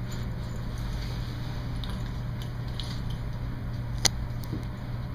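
Leather coat rustling and creaking as it is put on, over a steady low hum. About four seconds in comes one sharp click as a snap on the coat's front is fastened.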